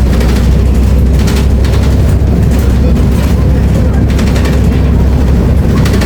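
Volvo B340M city bus's diesel drivetrain running, a loud steady low drone with irregular short clatters over it.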